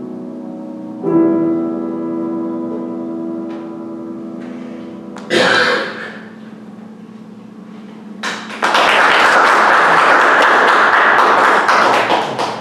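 Grand piano's closing chords ringing out, a new chord struck about a second in, then a sharp thump about five seconds in. From about eight and a half seconds, steady audience applause, the loudest part, fading near the end.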